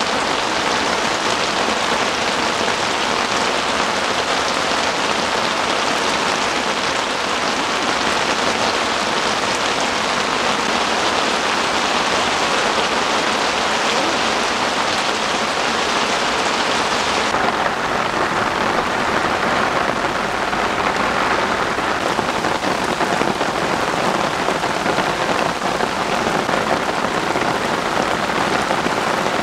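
Heavy downpour falling steadily on the tent, a dense, even hiss. About seventeen seconds in, the sound abruptly turns duller as the high hiss drops away.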